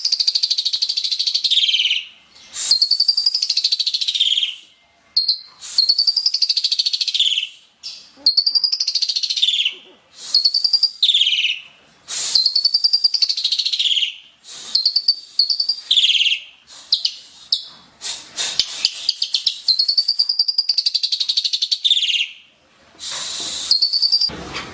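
Asian pied starling (jalak suren) singing: about a dozen loud, repeated phrases, each a rapid rattling chatter over a whistled note that rises and then falls, with short pauses between phrases.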